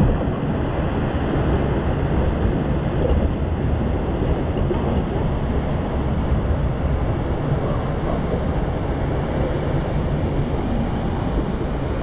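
Water rushing and churning in a river rapids ride channel around a round raft, a steady even rush mixed with wind buffeting the microphone.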